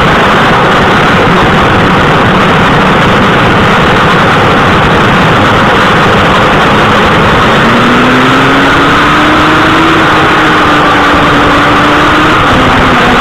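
Suzuki GSX-R1000 K7's inline-four engine running at road speed under a loud, steady rush of wind noise on the microphone. The engine note rises in pitch about halfway through as the bike speeds up, then drops back near the end.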